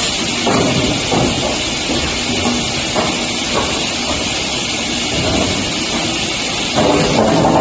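Multi-head wood cut-off saw machine running with a steady hiss, its blades cutting boards in several short surges and a louder cut near the end.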